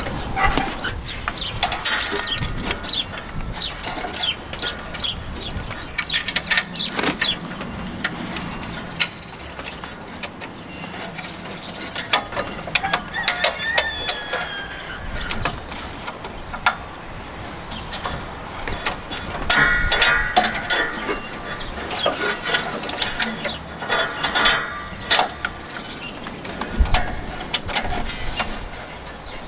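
Irregular metallic clicks, clanks and rattles of a Kubota M59 tractor seat's frame, springs and release cable being handled while a new seat-release cable is fitted under the seat.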